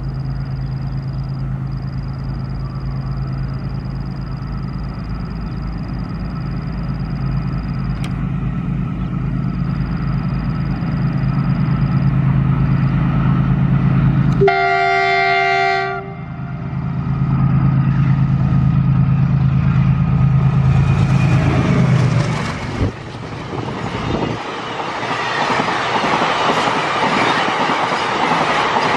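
WDG4G diesel locomotive running with a steady low engine hum as it approaches with a double-stack container train, sounding one horn blast of about a second and a half midway. Near the end, the container wagons rush past with a loud clatter of wheels on rail.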